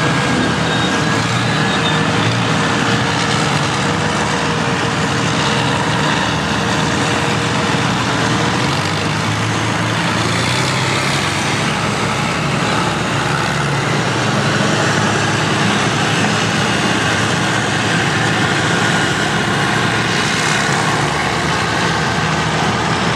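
Old Euclid R15 rear dump truck's Rolls-Royce diesel engine running as the truck drives slowly past, with other earthmoving machines working behind it.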